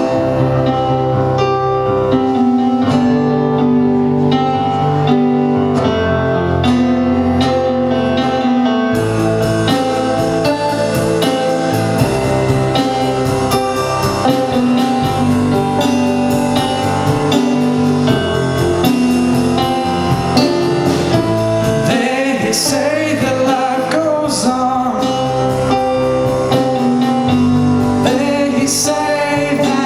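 A live rock band playing the instrumental intro of a slow ballad: sustained keyboard chords with guitar, the full band filling out about nine seconds in, and a lead line with bending notes in the last several seconds.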